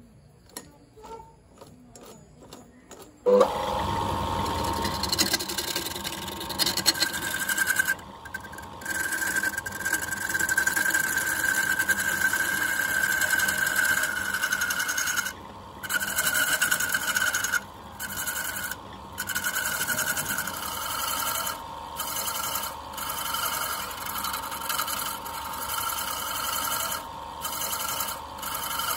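Wood lathe starting up abruptly about three seconds in after a few quiet handling clicks, then running steadily with a constant whine while a turning tool cuts the spinning bamboo blank. The sound drops out briefly several times.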